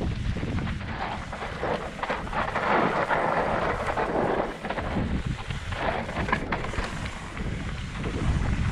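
Mountain bike riding fast down a rocky dirt trail: wind rumbling on the microphone, tyres hissing over dirt and rock, and the bike clattering with many small knocks.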